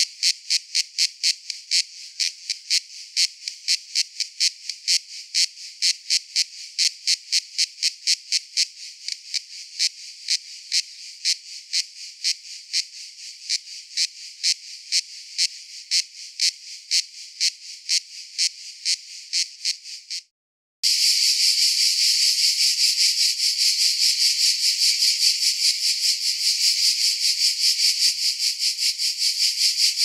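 Cicadas calling: first a regular pulsing call, about two to three high-pitched pulses a second. Then, after a brief break about twenty seconds in, a different recording of a continuous dense, high buzzing chorus.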